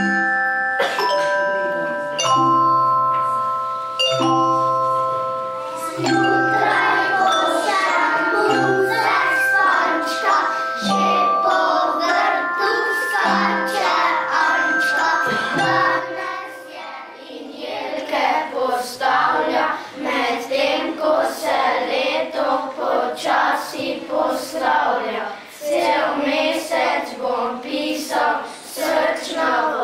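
Children's choir singing a song accompanied by tuned mallet percussion. The mallet instruments play alone at first. Voices come in about six seconds in, and after about seventeen seconds the singing goes on with little accompaniment.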